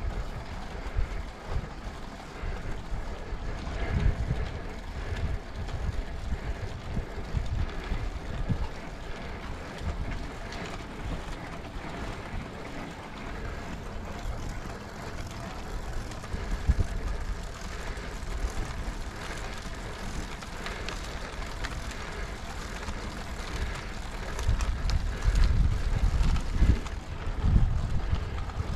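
Wind buffeting the microphone of a camera carried on a moving road bike: a gusty low rumble over a steady rushing noise, getting stronger for a few seconds near the end.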